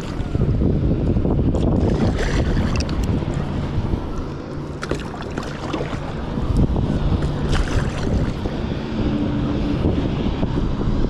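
Wind buffeting the microphone out on open water, with waves lapping and a few brief splashes.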